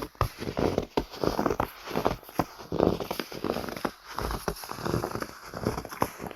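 Footsteps crunching through snow at a steady walking pace, roughly one to two steps a second.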